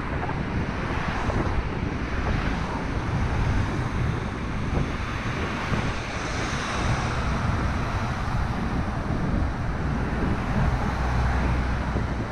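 Wind buffeting the microphone of a bicycle-mounted GoPro while riding, a steady low rumble, mixed with road noise and traffic on the road alongside.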